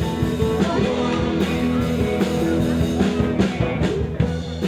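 Live rock band playing: electric guitar, bass guitar and drum kit, with held guitar notes over a steady drum beat.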